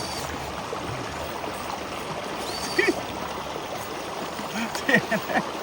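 Steady rushing noise of flowing water, like a small stream, with brief voice sounds about three seconds in and again near the end.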